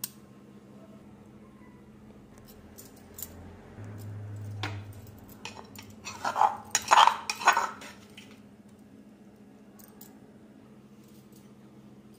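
Steel spoon scraping and knocking against a stone mortar while scooping out crushed garlic. The sound comes as a dense two-second cluster of scrapes and clinks near the middle, after a few lighter ticks.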